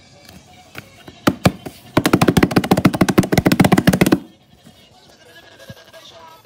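Pages of a paper flipbook flicking under the thumb: a few single page snaps, then a loud, fast run of clicks for about two seconds that stops suddenly.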